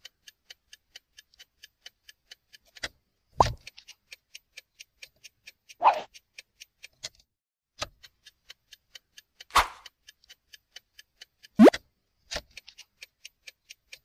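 Steady clock-like ticking, about three ticks a second, with a few louder sound effects over it: two quick rising swoops and two short noisy hits.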